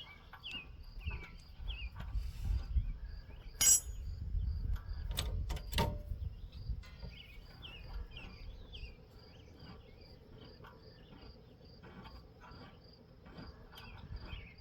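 A few sharp metallic clinks of tools on suspension hardware, with rumbling handling noise, in the middle. Behind them run steady chirping insects and short bird chirps.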